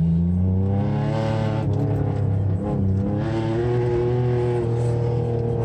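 Car engine heard from inside the cabin on an autocross run, revving up and easing off between cones: its pitch climbs, drops briefly about a second and a half in, climbs again and settles lower near the end.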